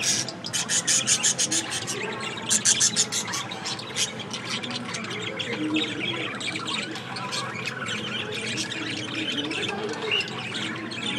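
Budgerigars chattering: a busy, continuous mix of warbling, chirps and squawks, with the sharpest, loudest calls in the first few seconds.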